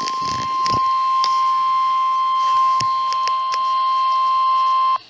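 NOAA Weather Radio's 1050 Hz warning alarm tone: one loud, steady beep that cuts off sharply near the end, with a few faint clicks under it. The tone signals that a new warning message is about to be read.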